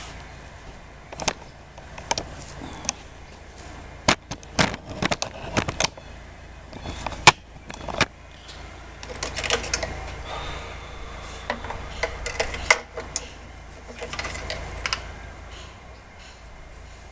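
Hands working on a lawnmower: an irregular string of sharp clicks and knocks, with stretches of rubbing and rattling.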